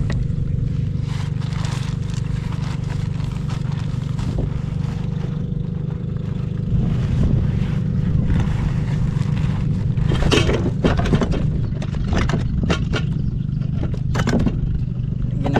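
A steady low motor drone, with a run of sharp knocks and scrapes in the last third.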